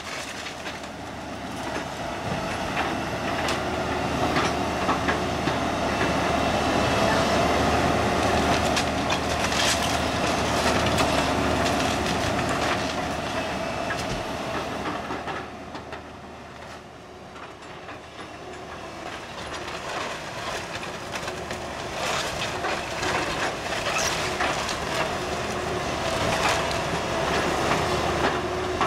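Hyundai hydraulic excavator demolishing a wood-frame house: its engine and hydraulics run with a steady drone while the bucket tears into the structure, with frequent cracking, splintering and crashing of timber and debris. The din eases for a couple of seconds past the middle, then builds again.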